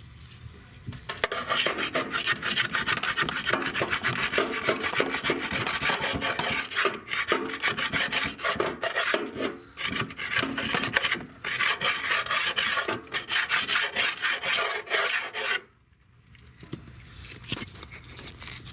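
A flat piece of metal scraped rapidly back and forth, rasping, in long runs broken by brief pauses. It starts about a second in and stops a few seconds before the end.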